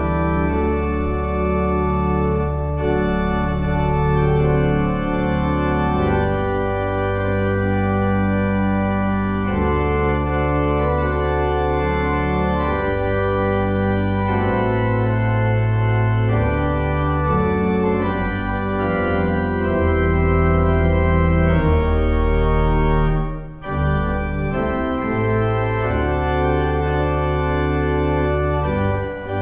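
Church organ playing a slow prelude of sustained chords over a deep pedal bass, the chords changing every second or two, with a brief break about 23 seconds in.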